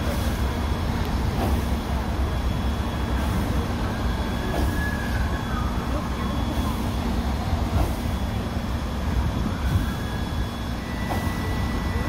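1912 Polson #2 steam locomotive standing at idle: a steady low rumble and hiss of escaping steam, with faint soft beats every second or two and a brief high tone twice.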